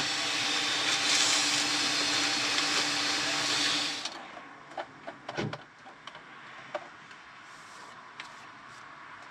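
Vacuum cleaner running with a steady hiss and hum, cutting off about four seconds in. After that, a much quieter stretch with a few light clicks and knocks.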